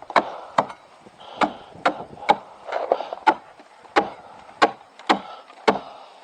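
Footsteps on icy ground, a sharp crunch about twice a second.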